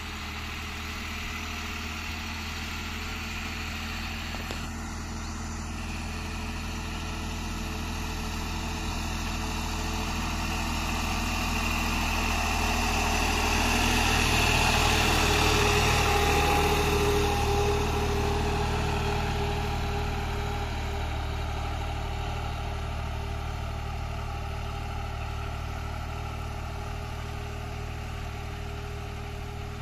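New Holland 3630 TX tractor's diesel engine running steadily while working a laser land leveler, growing louder to a peak around the middle and then easing off again.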